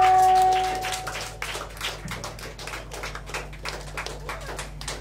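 A piece of live electronic music ends on a held tone that fades out about a second and a half in. Scattered clapping from a small audience follows.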